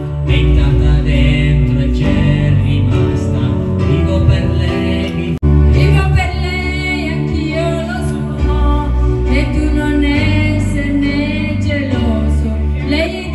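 Karaoke: a man and a woman singing into handheld microphones over an amplified backing track with a heavy bass line. The sound cuts out for an instant about five seconds in.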